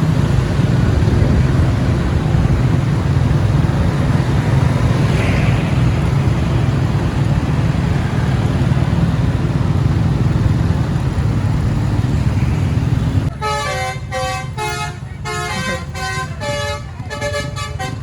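Steady vehicle engine and road rumble for about thirteen seconds, then it cuts off abruptly and a bus's multi-tone telolet air horn plays a quick, choppy tune of changing chords.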